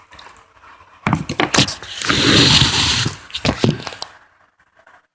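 Scraping and knocking while slime is mixed with activator in a container. The knocks are sharp, with a loud rushing scrape for about a second in the middle.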